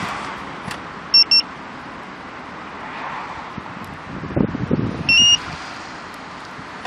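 Aftermarket car alarm's two-way remote fob beeping as the remote start is triggered: two short beeps about a second in, then a single longer beep a few seconds later. Between them, around four seconds in, a brief low rumble of the Opel Corsa's engine being remote-started.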